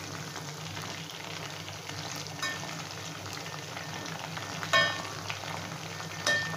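Chicken pieces sizzling steadily as they deep-fry in hot oil in a metal kadai, while a perforated slotted spoon turns them over once their undersides have crisped. The spoon clinks against the pan three times, the loudest about five seconds in.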